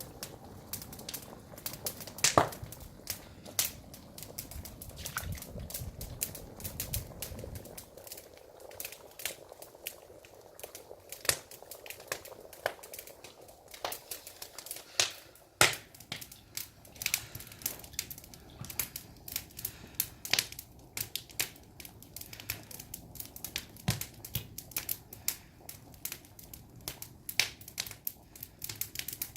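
Firewood burning under a cast-iron gamasot cauldron of beef-bone broth, crackling and popping with irregular sharp pops. A low rumble underneath stops about eight seconds in.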